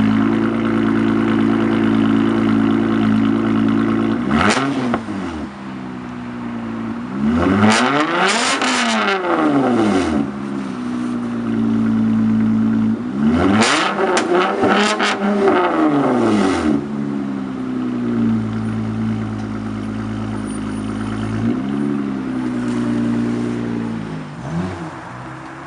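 Honda Accord V6 with a custom Magnaflow exhaust idling, then revved several times: a short blip about four seconds in, two longer revs that each climb and fall back over two to three seconds, and a couple of lighter blips near the end.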